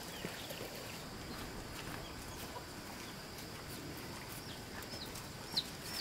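Chickens clucking faintly, with a few short high chirps near the end.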